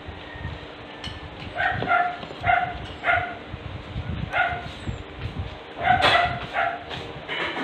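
An animal's short, high-pitched calls, repeated about eight times at uneven intervals and loudest about six seconds in. Underneath are the low knocks and chewing of people eating close to the microphone.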